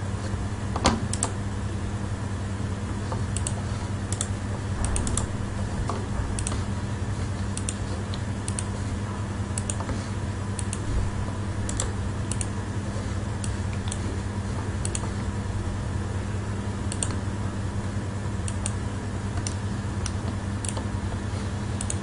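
Scattered single and double clicks of a computer mouse, over a steady low electrical hum.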